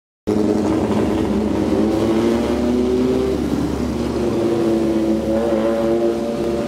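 Racing car engines running hard, several pitches shifting up and down as the cars pass on the circuit.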